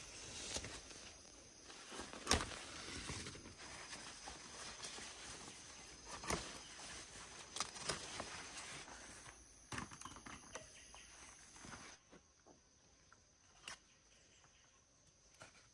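Eggplant leaves and stems rustling as eggplants are picked by hand, with light footsteps on garden soil. Scattered sharp clicks and snaps stand out, the loudest about two seconds in, and the handling quietens after about twelve seconds.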